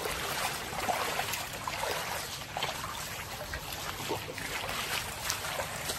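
Rainwater running and trickling over a flooded lane after heavy rain: a steady wash of water.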